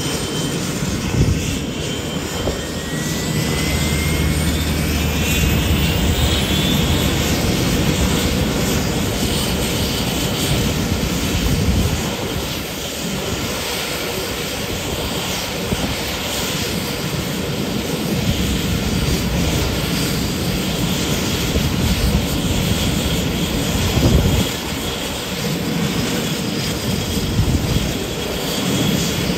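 Beechcraft King Air's twin PT6A turboprop engines running at taxi power, a steady loud whine and rush, with a thin rising whine about two to six seconds in.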